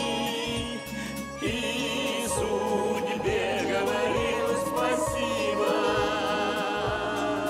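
A vocal group singing with instrumental backing and a steady bass beat; the voices hold notes with vibrato.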